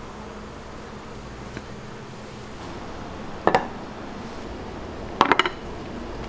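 Ceramic plates clinking as they are set down on a table: one clink about three and a half seconds in, then a quick cluster of three or four clinks about two seconds later, over steady room noise.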